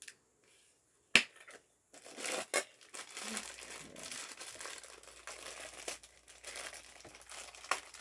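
A sharp click about a second in, then steady crinkling and rustling of packaging as a Funko Soda figure is unwrapped from its can.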